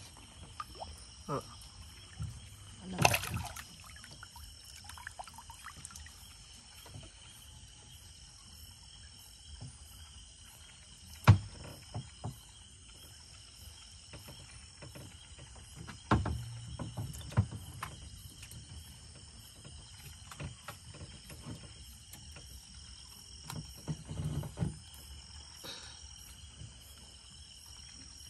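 Steady chorus of night insects, with scattered knocks and thumps from work in a wooden canoe; the loudest is a sharp knock near the middle.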